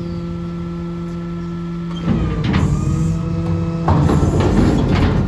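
Rear-loading garbage truck's engine running steadily, then about two seconds in the hydraulic cart tipper starts lifting a bin of wooden pallets and the engine's pitch shifts under the load. From about four seconds in it grows louder and rougher as the tipped bin and pallets rattle over the hopper.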